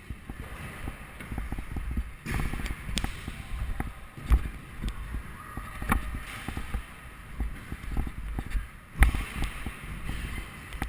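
Scooter wheels rolling over rough ground, a rumble full of clacks and knocks, with two louder thumps about four and nine seconds in.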